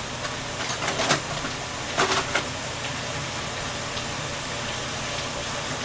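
Fried rice sizzling steadily in a wok over a high gas flame, with a few brief clicks or rustles about one and two seconds in.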